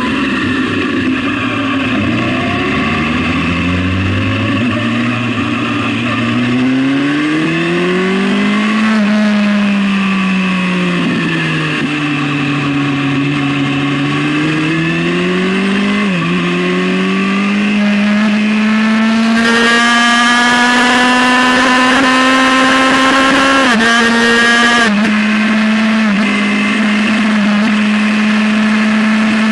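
Suzuki GSX-R sportbike's inline-four engine accelerating hard through the gears. The pitch climbs, eases off and climbs again, then dips suddenly at upshifts about halfway in and again past three-quarters. It is loudest just before the second shift, then holds a steady note at speed.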